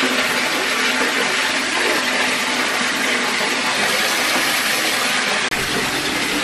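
Bathtub tap running full, water pouring into a filling tub in a steady rushing hiss. The sound drops out for an instant about five and a half seconds in.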